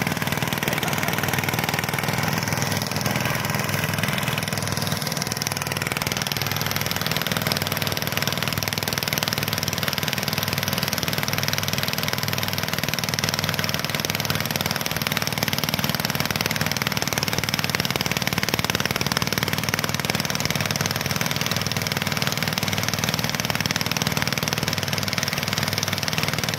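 A small engine running steadily at an even pace.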